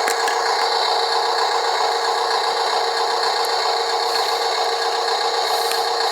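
Small electric drive motor and gears of a model dump truck running steadily, a high whine with scraping and rattling and no engine rumble.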